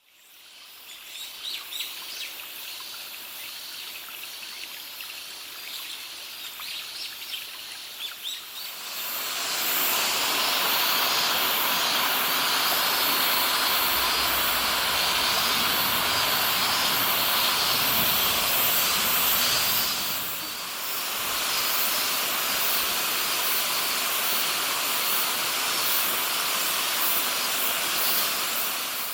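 Mountain stream rushing over rocks, a loud steady rush of water that comes in about nine seconds in and dips briefly about twenty seconds in. Before it, a quieter open-air background with birds chirping.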